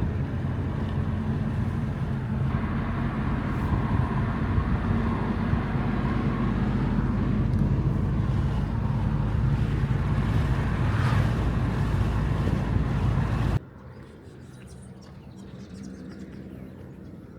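Car driving on a road: steady engine hum and tyre noise. It cuts off abruptly near the end, leaving a much quieter background.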